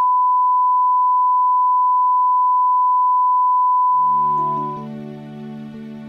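A steady, pure, single-pitched test tone of the kind played with colour bars, fading out about four and a half seconds in as soft music with held notes begins.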